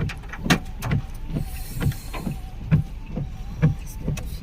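Hailstones striking a hard surface: loud, irregular knocks, about two or three a second, over a low steady hum.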